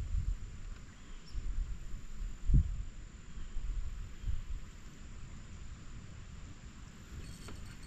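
Wind buffeting the microphone in irregular low gusts, the strongest about two and a half seconds in, over a faint steady hiss.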